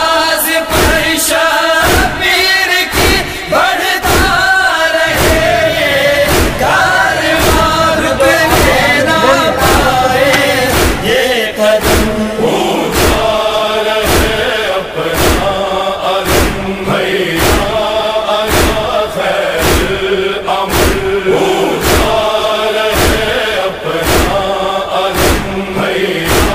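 Male voices chanting Urdu verse in unison over a steady thumping beat.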